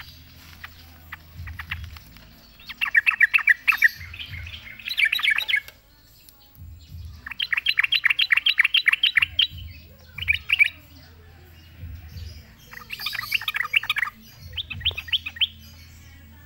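Caged yellow-vented bulbul singing hard in six bursts of rapid chattering notes, each a second or two long with short pauses between.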